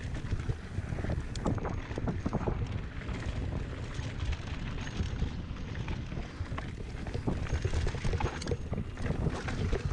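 Mountain bike riding down a rocky trail: wind rumbling on the action camera's microphone, with tyres rolling over dirt and rock and the bike clattering in many short knocks over the bumps.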